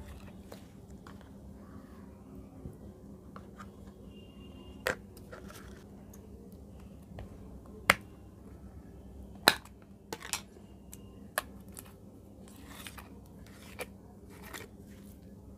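Clay slime being scraped by hand out of small plastic tubs, with soft sticky sounds and scattered sharp clicks of fingers and slime against the plastic, the loudest about eight and nine and a half seconds in.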